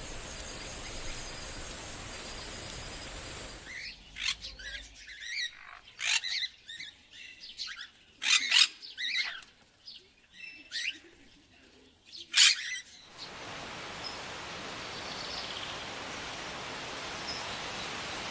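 Forest birdsong: a wild bird gives a series of loud, sharp calls with quick pitch sweeps, the two loudest about eight and twelve seconds in. Before it there is a steady hiss with a high insect-like whine, and after it a steady even hiss.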